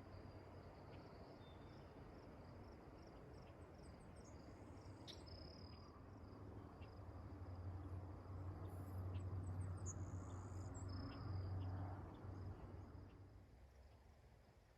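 Faint steady pulsing trill of insects, with a few short high chirps over it. A low rumble swells in the middle and fades away near the end.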